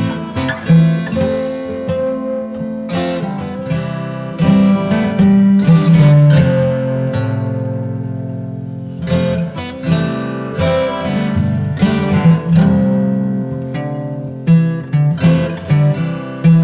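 Background music played on acoustic guitar: plucked notes and chords, each picked attack ringing and fading.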